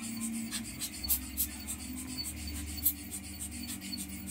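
Small brush scrubbing over a camera lens element and its metal ring in quick, scratchy strokes, a few a second, over a low steady hum.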